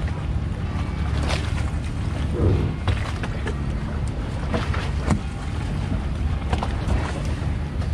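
Boat engine running steadily with a low rumble, with water splashing and slapping in short bursts throughout.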